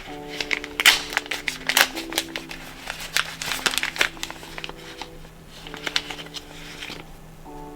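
Packaging crinkling and rustling in irregular bursts as it is handled, over soft background music. The crinkling stops about seven seconds in.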